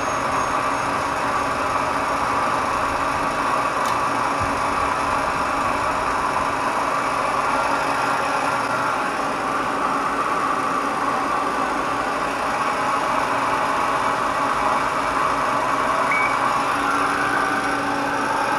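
Mazak CNC lathe running with a steady mechanical hum, its tool-setting probe lowered and the turret jogging the tool toward it. A short high chirp comes about sixteen seconds in, and a higher steady whine joins near the end.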